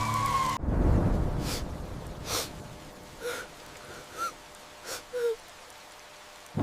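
A siren wail over a low drone cuts off abruptly less than a second in. A low rumble fades over the next couple of seconds, then a few faint short sounds follow.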